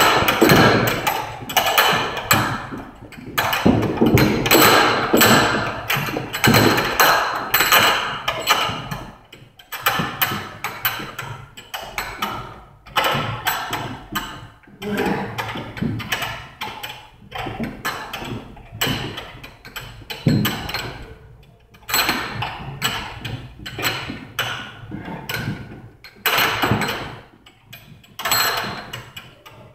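Heavy battle ropes slapping the gym floor in quick waves, several slaps a second, in runs broken by short pauses.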